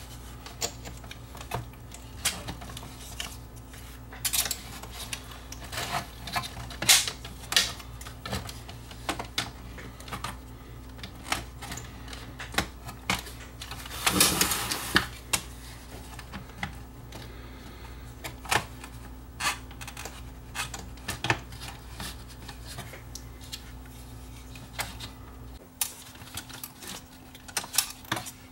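Plastic CD loading mechanism being handled and seated into a sheet-metal CD player chassis: irregular clicks and knocks of plastic against metal, with a louder scrape lasting about a second midway through.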